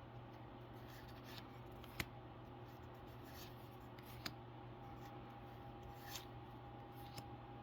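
Faint handling of Pokémon trading cards, with soft rustling of cards sliding against one another. There are two sharp clicks, one about two seconds in and one just after four seconds, and a few lighter ticks near the end.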